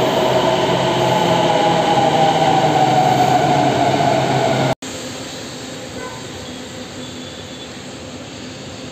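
Noida Metro Aqua Line train moving at the platform with a whine that slowly sinks in pitch. It stops at a sudden cut about five seconds in, and a quieter steady background noise follows.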